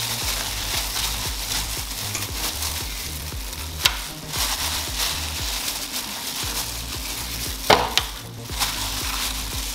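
A plastic glove crinkling and a disposable aluminium foil pan crackling as raw, seasoned chicken drumsticks are set into it. Two sharper clicks come about four and eight seconds in; the second is the loudest.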